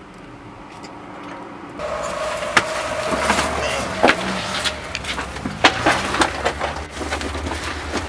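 Motorhome engine idling. About two seconds in, the sound opens up and many knocks, bumps and rustles follow over the idle as someone comes in through the side door.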